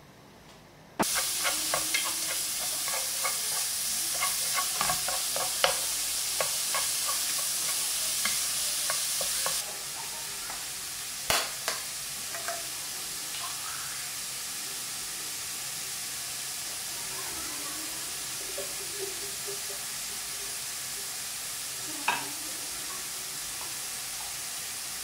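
Minced beef sizzling in a frying pan, a steady hiss that drops noticeably about ten seconds in, with many small clicks early on and a few sharp clinks later.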